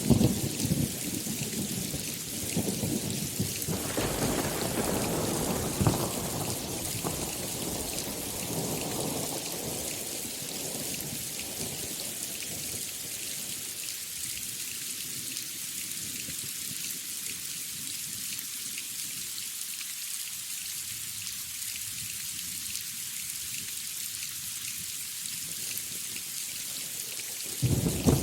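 Thunderstorm: steady heavy rain with thunder rumbling in the first part and dying away, then rain alone. A new loud thunderclap breaks just before the end.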